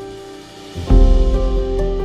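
Soft instrumental background music with sustained notes; a deep bass note comes in about a second in.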